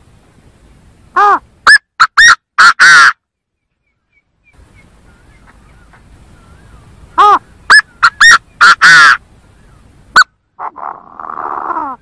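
Chinese francolin calling loudly, twice giving its phrase of about six quick harsh notes ending in a longer one. A single note and a lower, rougher call follow near the end.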